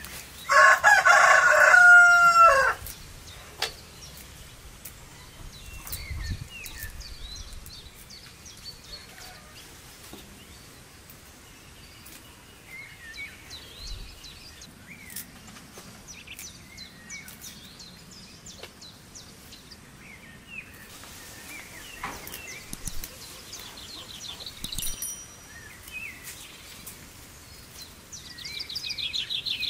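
A rooster crowing loudly once, for about two seconds, near the start, followed by faint chirps of small birds scattered through the rest.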